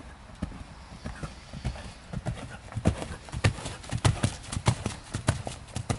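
Hoofbeats of a cantering horse on an arena's sand footing: a steady rhythm of dull thuds that grows louder as the horse comes near, is loudest about three to five seconds in, then fades as it moves away.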